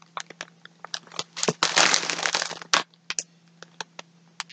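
Packaging crinkling and crackling as yarn is unpacked: scattered sharp crackles, with a denser stretch of rustling in the middle.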